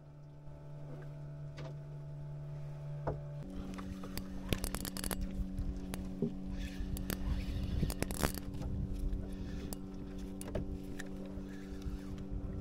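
A boat engine running with a steady hum that steps up in pitch and gets louder about three and a half seconds in. Over it, scattered clicks and scrapes of fishing tackle being handled.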